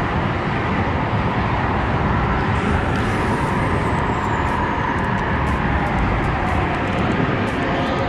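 Steady rumble of road traffic, with a few faint clicks near the end.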